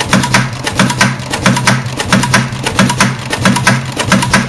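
Industrial sewing machine running at a steady speed as it stitches through leather: a fast, even clatter of needle strokes over a low motor hum.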